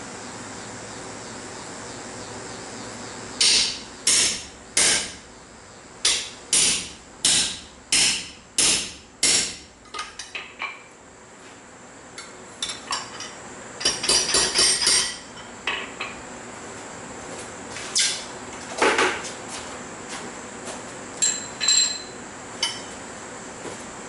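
Hammer blows on hot steel on an anvil while forging a bottle opener: a run of about nine heavy strikes, a little under two a second, then lighter taps, a quick cluster of ringing hits, and a few scattered blows.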